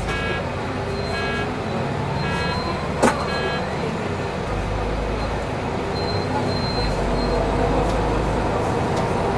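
Solaris Urbino 8.9LE city bus moving off and gathering speed, its engine and drivetrain running with a whine that rises in pitch. For the first three seconds or so an electronic beep sounds about once a second, and there is a single sharp knock about three seconds in.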